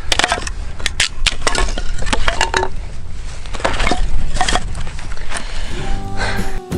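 Firewood being split and broken up with a knife: a run of irregular sharp cracks and crunches of wood. Guitar music comes in near the end.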